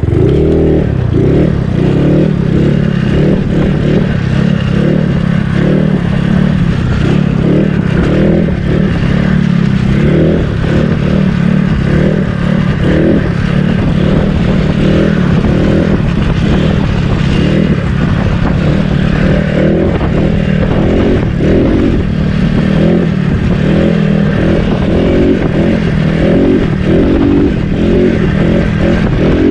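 Yamaha Mio scooter's single-cylinder engine running steadily under throttle while being ridden, with wind buffeting the microphone. The engine is old and in poor running condition.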